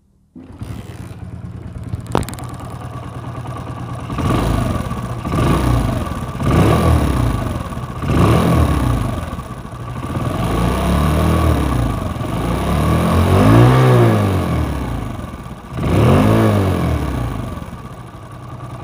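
Old Hero Splendor's single-cylinder four-stroke engine running and being blipped about six times, each rev rising and falling, with a harsh rasping 'khyas khyas' noise from the engine. The mechanic is going to check whether the timing chain or tappets are loose.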